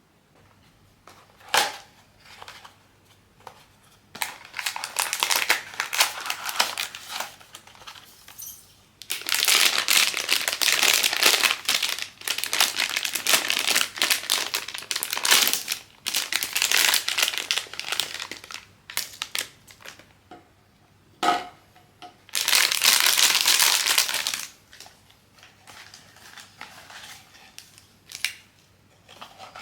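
Blind-box packaging crinkling and crumpling as it is handled, in several long bursts, with a couple of sharp clicks, one near the start and one about two-thirds of the way through.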